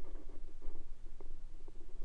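Irregular scratching and rustling in dry leaf litter, several quick scrapes a second, over a steady low rumble.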